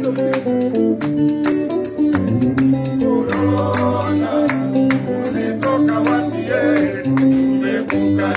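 Band music with guitar over a moving bass line and a steady percussion beat, with voices singing.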